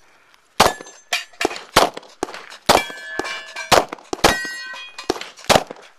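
About a dozen 9mm pistol shots fired at an uneven rapid pace, with the metallic clang and ring of bullets striking steel targets. The ringing hangs on after several hits through the middle of the string.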